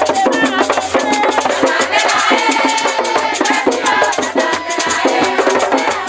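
Lively church praise music: voices singing over shaken rattles and drums, with fast, steady rattle strokes and no pause.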